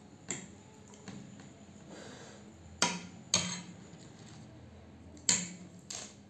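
Metal fork and spoon clinking against a plate of noodles: about five sharp clicks, the loudest a pair about three seconds in and another near five seconds in.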